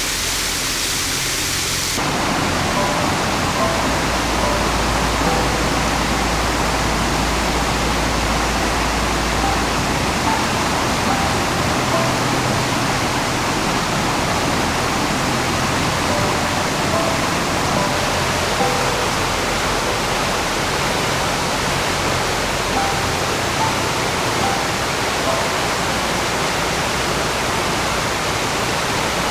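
Mountain stream rapids rushing, a steady full-bodied roar of water.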